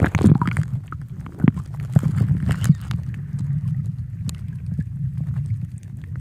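Muffled underwater sound of the sea heard below the surface: a steady low rumble of moving water with scattered sharp clicks and ticks, as swimmers kick and stir the water nearby.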